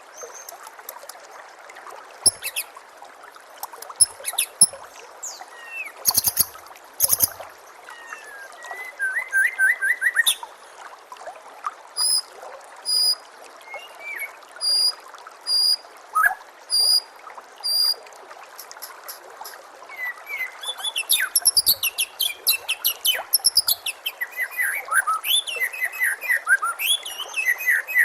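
White-rumped shama (murai batu) singing over a steadily trickling stream: a few sharp clicks near the start, a run of evenly spaced single whistled notes in the middle, then fast trills and quick falling phrases near the end.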